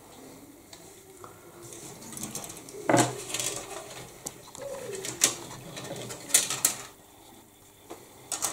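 Grey plastic model-kit sprues being handled and moved about: rustling with several sharp plastic clicks and knocks, the loudest about three seconds in and again around six seconds in.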